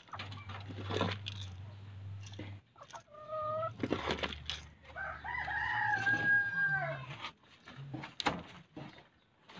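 Rooster crowing once, a call of about two seconds that holds and then falls away, starting about five seconds in, after a shorter call about three seconds in.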